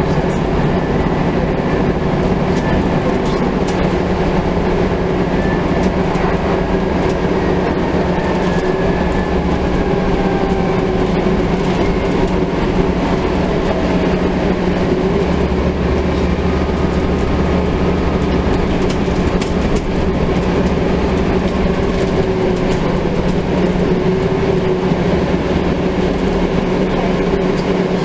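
Scania N250UD double-decker bus's five-cylinder diesel and drivetrain running under way, heard from inside the passenger saloon. It is a steady, loud drone with a faint whine that slides up and down as the speed changes.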